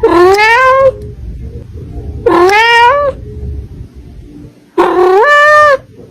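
A cat meowing loudly three times, each call just under a second long and rising in pitch.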